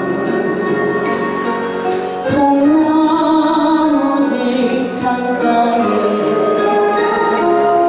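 A woman singing a song over instrumental accompaniment, holding long notes that bend in pitch.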